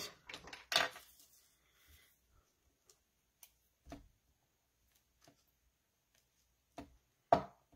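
Faint rustle of a paper sheet being picked up, then a few short, light taps as rhinestones are lifted off the sheet with a pick-up tool and pressed onto card stock, the loudest tap near the end.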